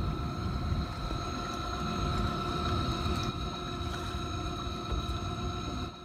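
400-watt Torqeedo electric outboard motor running at a steady cruise, a steady high whine over a low rushing noise of water and wind as the boat moves along.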